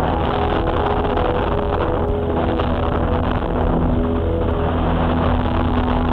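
A 50cc gasoline engine on a Wilga scale RC tow plane running steadily on the ground, heard close up through a camera mounted on the aircraft.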